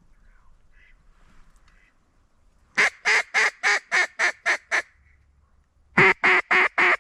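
Mallard duck call blown close by in two runs of loud quacks, the first of about eight notes coming quicker toward the end and the second starting about a second later: a hen-mallard greeting call to draw ducks into the decoys. Faint distant duck calls come before it.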